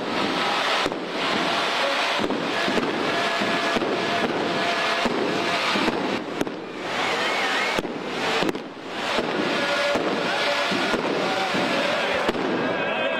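Fireworks going off in a dense, continuous crackling and popping, easing briefly twice.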